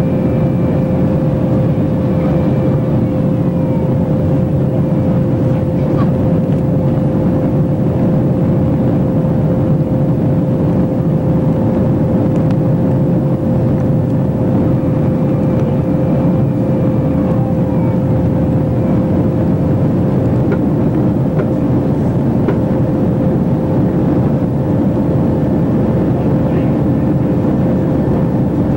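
Steady engine and airflow noise inside an airliner cabin in flight, with one constant tone running through it.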